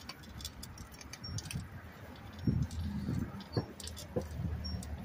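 Bicycle rolling over a brick-paved sidewalk, with light metallic jingling and rattling throughout. A run of low bumps begins about two and a half seconds in.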